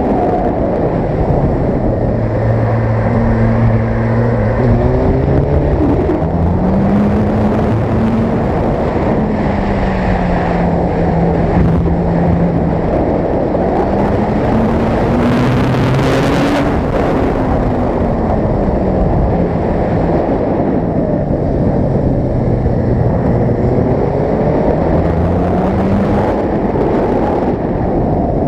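Suzuki GSX-R sport motorcycle's engine pulling through winding corners, its pitch slowly rising and falling several times as the throttle is rolled on and off, over steady wind and road noise, with a short gust of wind noise about halfway through.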